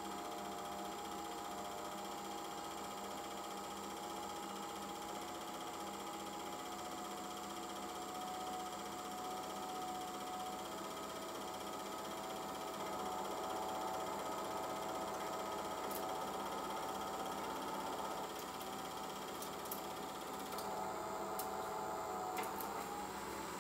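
Home-movie film projector running: a steady motor whine with a light mechanical clatter of the film transport, with a few sharp clicks in the last several seconds.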